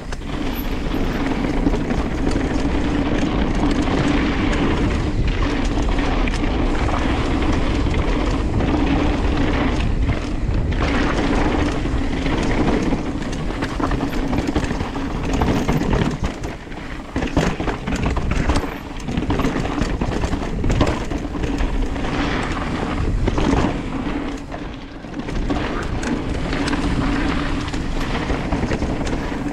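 Privateer 161 mountain bike descending a hardpacked dirt trail: knobbly tyres rolling over the dirt with a steady hum, knocks and rattles over bumps, and wind rumbling on the microphone. The noise drops briefly twice, about halfway through and again near the end.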